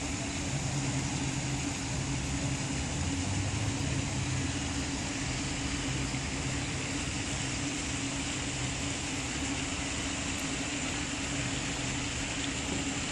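A steady low engine-like hum with a constant hiss over it, unchanging throughout.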